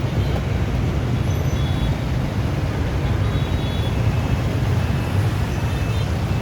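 Steady low rumble of outdoor background noise, with a few faint, short high-pitched tones now and then.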